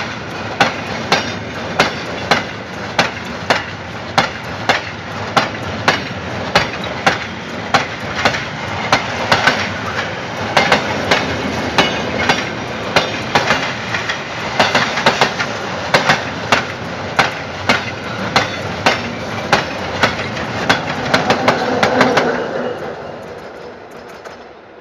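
Freight wagons rolling past, their wheels clicking over the rail joints in a steady rhythm of about two clicks a second over a continuous rolling rumble. Near the end the last wagon passes, and the clicking and rumble fade away.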